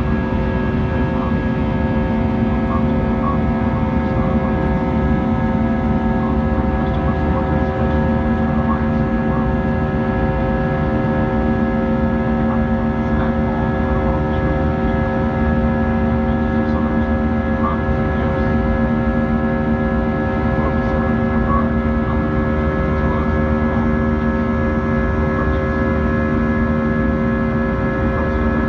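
Airbus A320-232's IAE V2500 turbofan engines at climb power, heard inside the cabin beside the wing: a steady loud drone with several steady humming tones layered over it.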